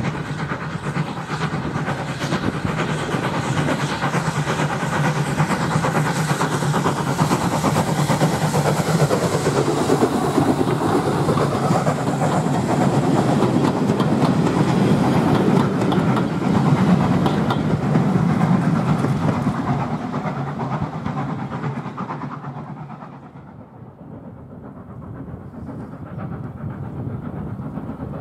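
Steam-hauled passenger train passing close by: the steam locomotive working and the coaches' wheels clicking over the rail joints. The sound drops away sharply about three quarters of the way through, leaving a much quieter outdoor background.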